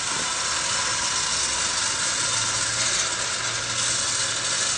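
A 4x4 bakkie's engine running steadily under a constant hiss while the vehicle is winched forward out of deep mud.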